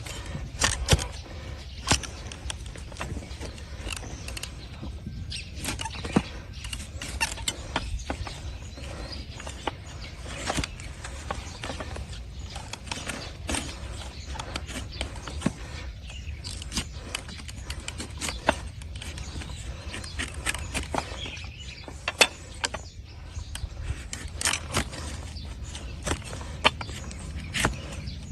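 A trimmer's blade cutting and paring hard, overgrown donkey hoof horn: irregular crisp cuts and scrapes, with a few sharper cracks.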